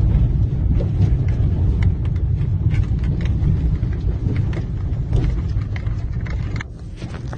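Road and engine rumble of a moving car heard from inside the cabin, with scattered light clicks and rattles; the rumble drops off near the end.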